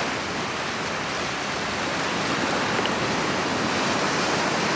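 Ocean surf washing steadily over rocks.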